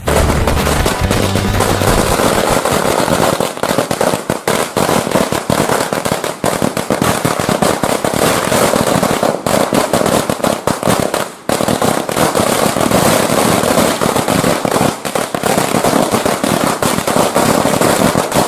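A string of small mirchi/bijli firecrackers going off in a fast, unbroken run of loud pops and crackles, with a brief lull about eleven seconds in.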